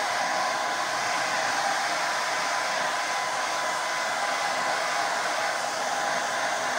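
Hand-held hair dryer running steadily, blowing a dog's wet coat dry: a continuous airy rush with a faint high whine under it.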